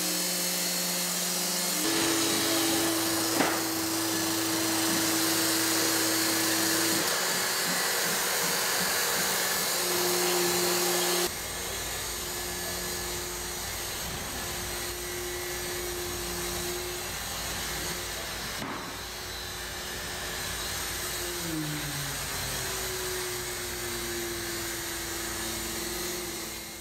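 Boston Dynamics Handle robot's hydraulics and electric motors whirring: a steady whine over a hiss that shifts in pitch several times as it moves, with a brief falling glide near the end.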